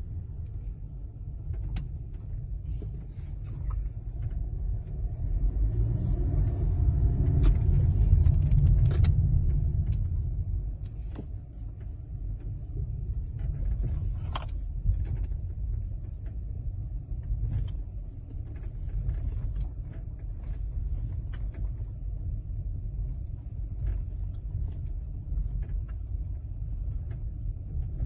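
Geely car running with a steady low rumble that swells between about 6 and 10 seconds in. Scattered short clicks and knocks sound over it: the stray, unexplained noise the car is being checked for.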